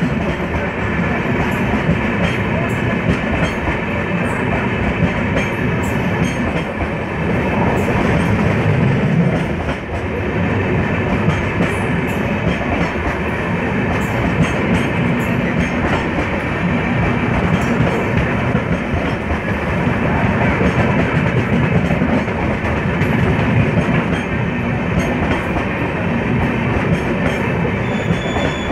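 Indian Railways express passenger coaches running past close alongside on the next track: a steady, loud rumble of wheels on rails that goes on without a break.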